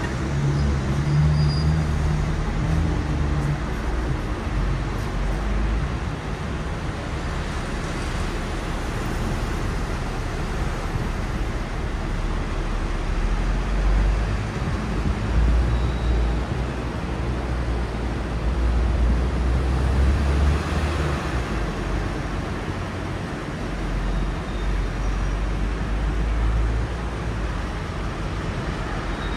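Hong Kong electric double-decker tram running along the street, heard from the upper deck through open windows: a steady low rumble of the moving tram mixed with surrounding road traffic.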